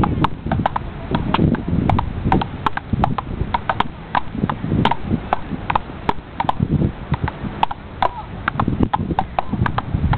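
Wooden frescobol paddles hitting a rubber ball back and forth in a fast rally: sharp knocks, about two or three a second, over a low rumble.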